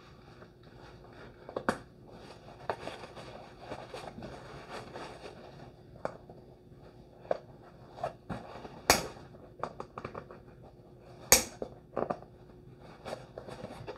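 Nylon webbing and fabric scraping and rustling as a game pouch is worked into tight MOLLE loops on a vest, with a few sharp clicks of its clips snapping in, the loudest near the end.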